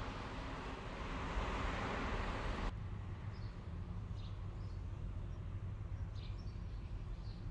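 Road traffic noise, a steady rush of passing cars, which cuts off abruptly about two and a half seconds in. A quieter low rumble follows, with a few faint, short bird chirps.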